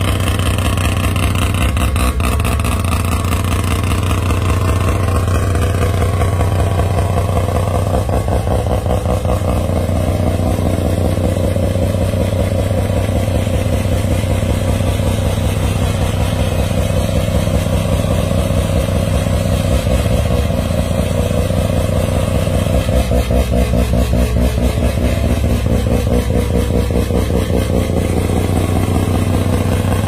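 Mazda RX-7's Wankel rotary engine running steadily with a fast, even exhaust pulse, holding a fairly constant speed with only slight rises and falls.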